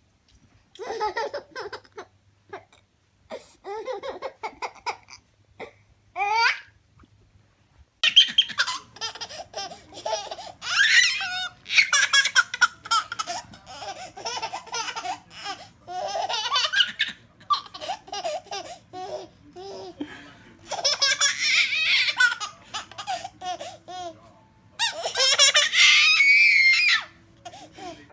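Baby laughing in short bursts with pauses, then more continuously and louder from about eight seconds in.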